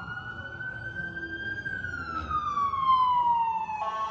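A single siren wail that rises slowly in pitch, then glides down, over a low rumble. Music with held chords comes in near the end.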